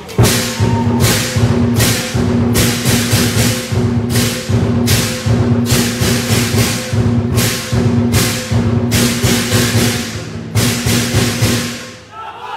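Lion dance percussion ensemble playing: a large lion dance drum beaten in fast, dense strokes under ringing gong and cymbal crashes about once or twice a second, accompanying a lion performing on high poles. The playing stops shortly before the end.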